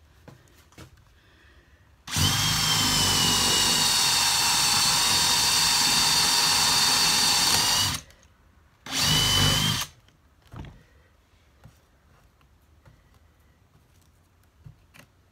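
Cordless drill with a Forstner bit boring a hole through a click-lock flooring plank: one steady run of about six seconds with a whine, a short pause, then a second burst of about a second. Faint small clicks follow.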